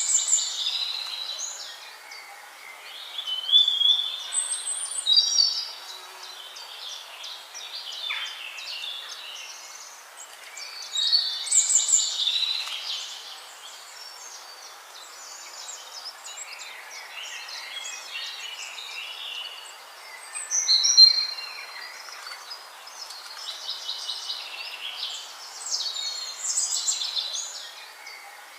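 Songbird singing in repeated phrases of quick, varied high notes, a new phrase every few seconds over a faint steady background.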